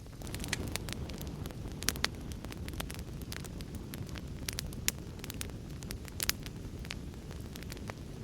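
Wood fire crackling in a fireplace, with irregular sharp pops scattered throughout, over a steady low rumble of heavy rain.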